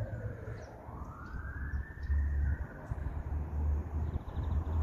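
Fire truck siren wailing in a slow glide: its pitch sinks just after the start, climbs back up over the next second or so, then holds high. A low steady rumble lies underneath.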